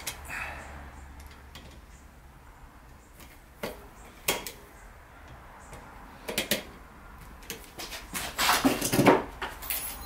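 Hand screwdriver turning the metal mounting screw of a light switch into its electrical box: scattered clicks and scrapes of metal on metal, with the loudest clatter near the end.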